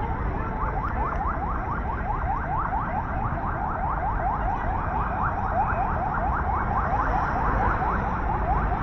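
An electronic alarm sounding a fast run of short rising chirps, about five a second, starting about half a second in, over a steady low rumble of city background noise.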